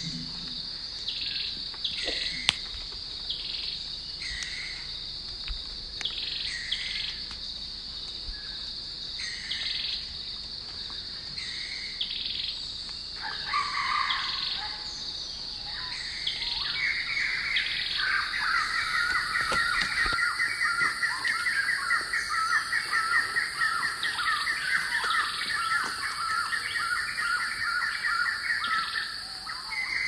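Birds calling over a steady high-pitched insect drone: one bird repeats a short call about once a second, then a long, rapid chattering trill starts a little past halfway and runs for about twelve seconds, joined by a second, higher insect whine.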